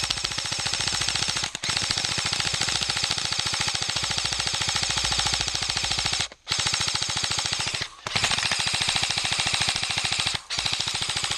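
Krytac Kriss Vector airsoft electric gun firing full-auto in long, rapid bursts, broken by four brief pauses.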